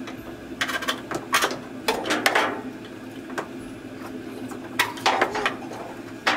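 The plastic control panel of a Whirlpool top-loading washer is being worked loose from its snap clips and lifted off: a series of sharp plastic clicks, knocks and scrapes. A steady low hum runs underneath.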